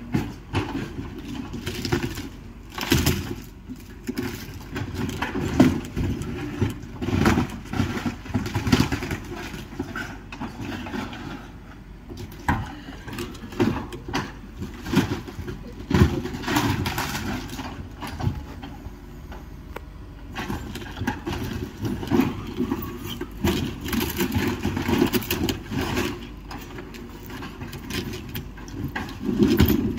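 Excavator engine running steadily, with irregular cracking and crunching of wood and metal debris as the building is torn down.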